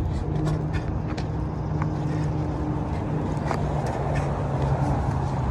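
A vehicle engine running: a steady low hum that drops slightly in pitch about three and a half seconds in, over a constant low rumble with a few light clicks.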